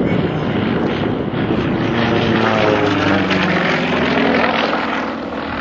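Sukhoi Su-31's nine-cylinder 360 hp radial engine and propeller running at high power overhead. The engine note drops in pitch a little past halfway, then holds steady.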